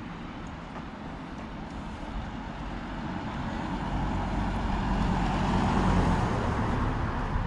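A car driving past close by, growing steadily louder to a peak about six seconds in, then easing off.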